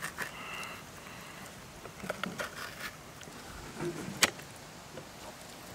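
Large knife cutting through raw catfish fillet on a wooden cutting board: soft slicing with scattered light clicks and taps, and one sharp tap about four seconds in.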